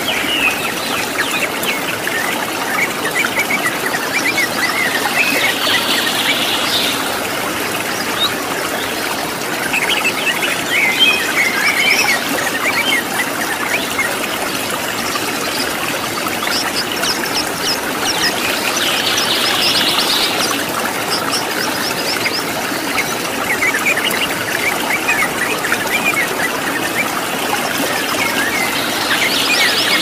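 A waterfall rushing steadily, with wild birds chirping and calling over it in clusters of quick chirps every few seconds.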